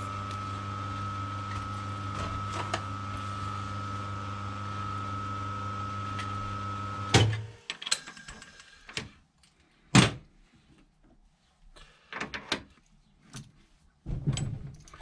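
Lathe's electric motor running with a steady hum, switched off about seven seconds in with a loud click. Then scattered clicks and knocks of metal tools being handled on the machine, one loud knock about ten seconds in.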